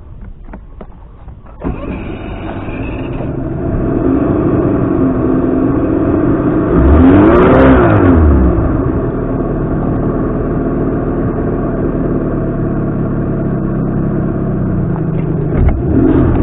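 Outboard motor running. About two seconds in it picks up sharply, then it is revved up and back down twice around the middle, the second time the loudest, before settling into a steady run.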